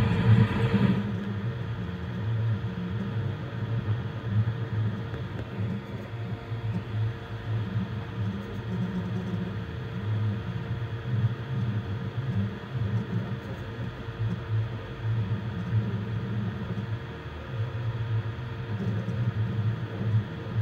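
Voron 3D printer running a print: its stepper motors hum low in short, irregular surges as the toolhead moves, over a steady fan whir.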